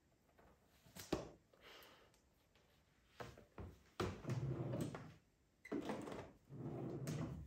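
A wooden bedside-table drawer sliding open and then shut, two scraping slides each about a second long, after a sharp knock and rustling from handling a notebook.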